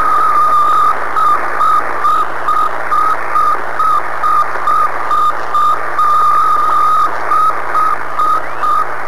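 Sputnik 1's radio beacon as picked up on a radio receiver: a single high beep repeating evenly, a little under two a second, through loud static hiss.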